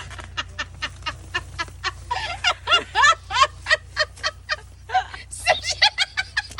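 Hard, high-pitched laughter in quick short bursts, several a second, over a low steady hum.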